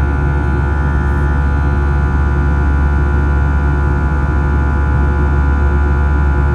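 Steady drone of the Airbus A321's CFM56 turbofan engines heard from inside the passenger cabin: a deep, even rumble with several steady whining tones above it, unchanging throughout.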